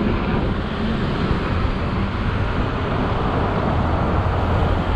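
Wind rushing over a chest-mounted action camera's microphone on a moving electric scooter, with road rumble and cars passing in the next lane.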